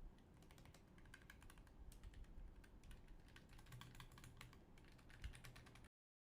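Faint typing on a Keychron low-profile mechanical keyboard with optical switches: a quick, uneven run of soft key clicks that stops abruptly near the end.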